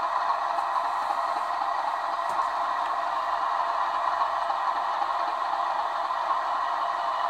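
Steady diesel engine idle from a stationary model diesel locomotive's sound decoder, played through its small speaker: an even hum with little bass.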